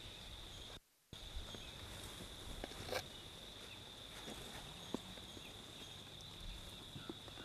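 Steady high-pitched drone of crickets, with a few faint light taps from a spoon scooping dessert out of a clay pot. The sound cuts out completely for a moment about a second in.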